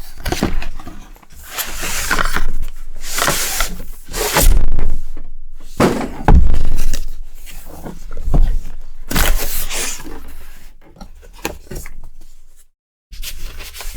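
A cardboard graphics-card box being opened and its contents lifted out: irregular rustling and scraping of packaging, with a couple of dull thumps around the middle.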